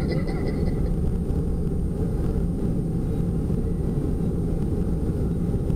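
Steady road noise inside the cabin of a van while driving: a low, even rumble of engine and tyres.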